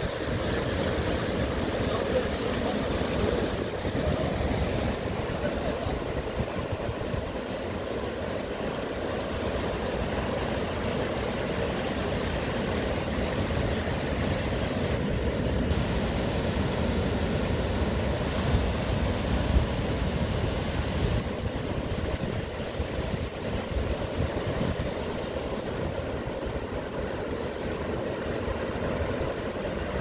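Heavy surf: a steady low roar of large waves breaking and rushing through whitewater.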